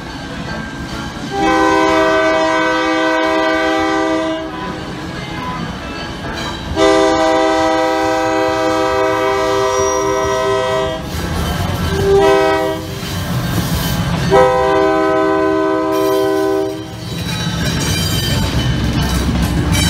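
Diesel switcher locomotive sounding its air horn in the grade-crossing pattern, long, long, short, long, as it pulls a passenger train out. Near the end the engine and the cars' wheels rumble as the train rolls past.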